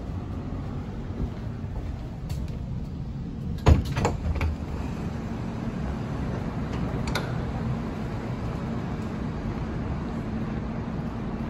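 Steady low hum of a stationary CAF Urbos tram. A sharp knock and a few softer thumps come about four seconds in, with a fainter click a few seconds later.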